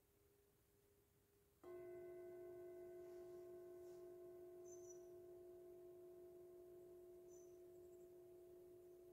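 Singing bowl struck once about a second and a half in, ringing with a steady low tone and several higher overtones; the upper overtones fade over a few seconds while the low tone carries on. Before the strike, only the faint tail of an earlier bowl tone is left.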